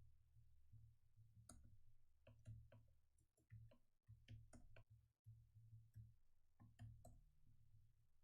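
Near silence with faint, irregular keystrokes on a computer keyboard, a few clicks every second or so, over a low hum.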